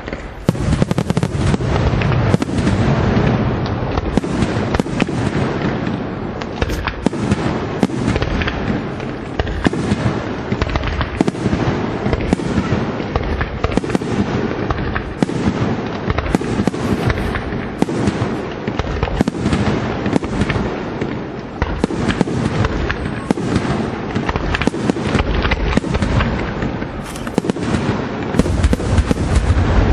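Aerial fireworks shells bursting in rapid succession: a dense, unbroken barrage of bangs, several a second.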